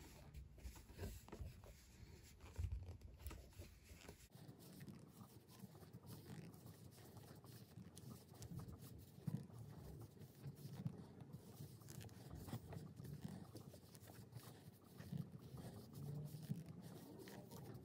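Near silence with faint, uneven rustling of a crochet hook working chunky chenille yarn, and a few slightly louder soft handling noises.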